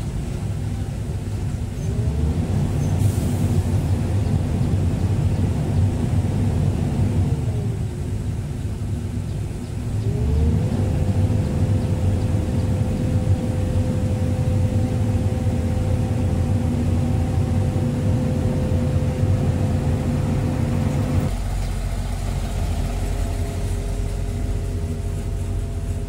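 Excavator's diesel engine running under load, heard from inside the cab. A whining tone rises and holds for a few seconds, then falls; it rises again and holds for about ten seconds. Near the end the sound abruptly drops to a lower, steadier hum.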